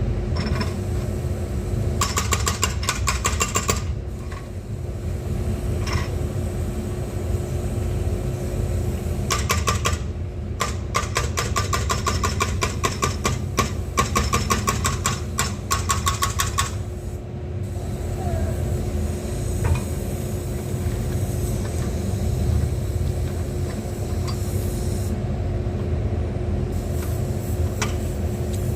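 Excavator engine running steadily, with two stretches of rapid metallic rattling: a short one a couple of seconds in and a longer one near the middle.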